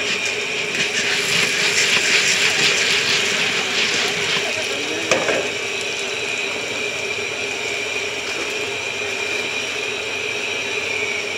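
Popcorn kernels sizzling in hot oil in a large steel kettle corn kettle over a propane flame, stirred with a wooden paddle, over a steady hum from the burner. The sizzle and scraping are strongest in the first few seconds, and there is a sharp knock about five seconds in.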